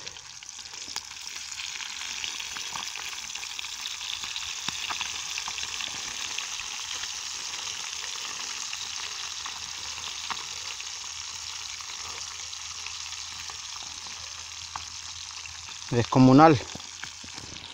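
Pieces of fish deep-frying in a pan of hot oil: a steady sizzle with scattered small pops.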